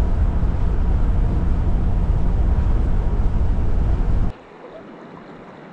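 Loud, steady low rumble of road and wind noise from a moving vehicle, cutting off abruptly about four seconds in to a faint, quiet background.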